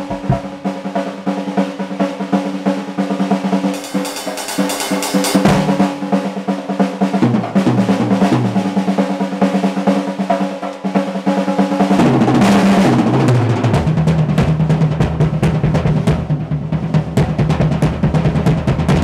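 Acoustic drum kit played solo: fast rolls on the snare and toms with bass drum underneath. From about twelve seconds in the playing moves to lower, heavier toms and bass drum.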